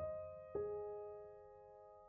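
Background piano music: a chord struck at the start and another note about half a second in, both left to ring and slowly fade.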